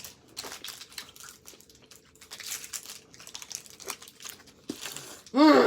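Hi-Chew candy wrappers being crinkled and torn open in quick, irregular crackles while the candies are unwrapped in a hurry. Near the end comes a short, loud voiced sound from a person that rises and falls in pitch.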